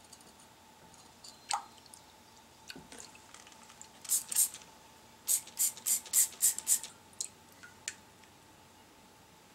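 Water dripping and splashing off an anodized aluminum ball as it is dipped in and lifted out of a bucket of rinse water: a single plop about a second and a half in, then a quick run of drips and splashes in the middle, then a few last drips.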